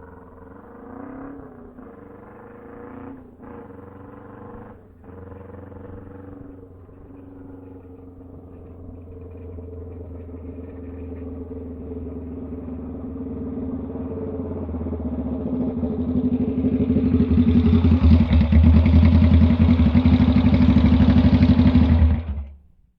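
Motorcycle engine running at a steady pitch and growing steadily louder, with a few brief dips in the first five seconds; the sound cuts off suddenly near the end.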